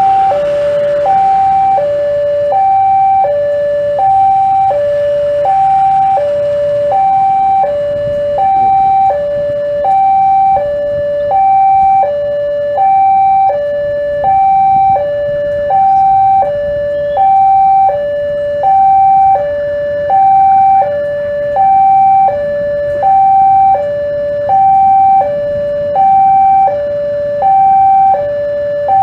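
Railway level-crossing warning alarm sounding a loud two-tone electronic signal, a higher and a lower note alternating evenly about every three quarters of a second without pause. It signals that the crossing is closed for a train about to depart the station.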